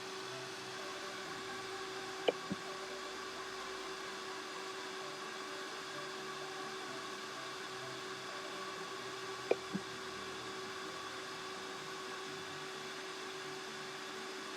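Cooling fans of a Hill EC-3000 PCP air compressor running steadily at power-on with a steady hum, the compressor pump itself not yet started. Two brief double clicks sound about two seconds in and again about nine and a half seconds in.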